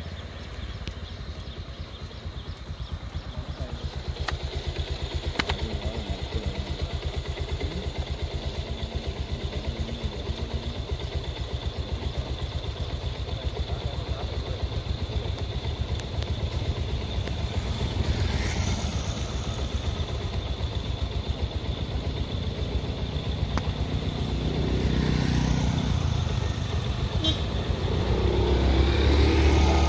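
A vehicle engine idling steadily close by, with motorcycle engines growing louder near the end as the bikes approach.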